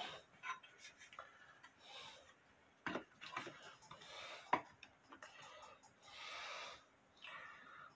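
Light handling of a clock's brass-rimmed bezel glass: scattered small clicks and taps at uneven intervals, with a few short bursts of rubbing, as if the glass is being wiped.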